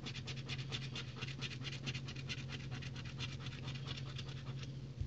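A copper penny scraping the coating off a paper scratch-off lottery ticket in quick back-and-forth strokes, several a second, stopping shortly before the end.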